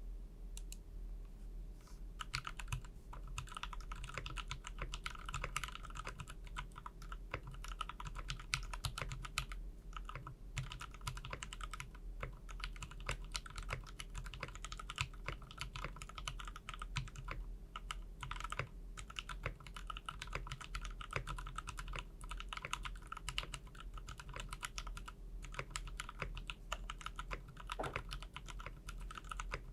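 Typing on a KBD75 V2 mechanical keyboard with an aluminium plate, stock Gateron KS-3 switches and ePBT ABS keycaps: a fast, continuous run of keystroke clacks that starts about two seconds in.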